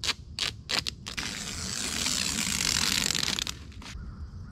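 Duct tape pulled off the roll in one long ripping peel lasting a couple of seconds, after a few short crinkles and clicks of the tape being handled, then quieter rustling as the strip is twisted.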